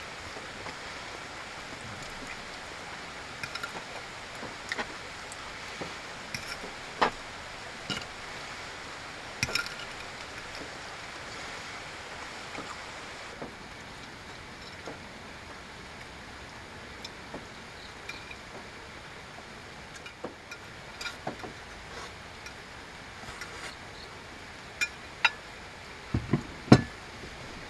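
A metal fork clinking and scraping on a ceramic plate in scattered sharp ticks, over a steady hiss of light rain on the car. Near the end come a few louder knocks as the plate is set down on the wooden table.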